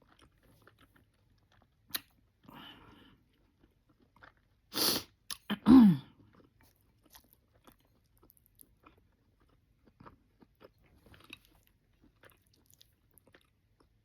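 Close-up mouth sounds of a person eating oxtails: soft chewing and lip smacks, with one louder noisy slurp just before five seconds in and a short hum falling in pitch just before six seconds.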